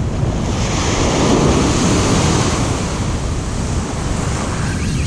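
Ocean surf breaking and washing up the beach, swelling about half a second in and easing off near the end, with wind rumbling on the microphone.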